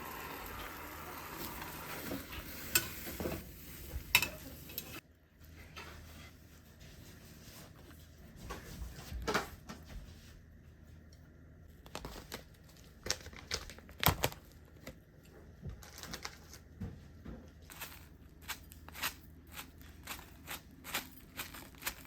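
Kitchen handling sounds: a steady sizzle for the first five seconds, then scattered light clicks, taps and knocks of dishes and packaging being handled.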